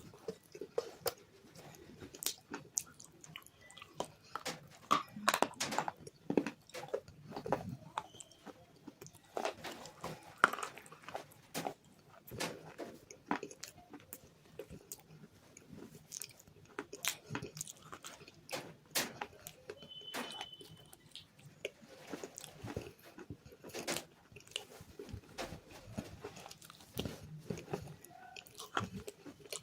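Close-up biting and chewing of hard, crunchy clay bars coated in white khadi (chalk) paste: irregular sharp cracks and crunches, with chewing between the bites.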